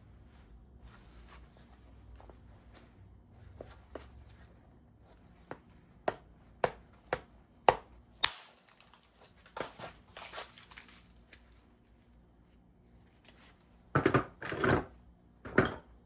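Flintknapping on a stone piece with a bad hinge fracture, being worked to remove it. There are about five sharp knocks roughly half a second apart around the middle and a few softer ticks after them. Near the end come three louder, longer strokes.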